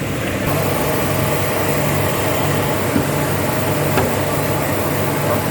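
Toyota Axio hybrid's 1.5-litre four-cylinder petrol engine idling steadily just after a combustion-chamber carbon-cleaning service, running smoothly. A light click about three seconds in and another about four seconds in.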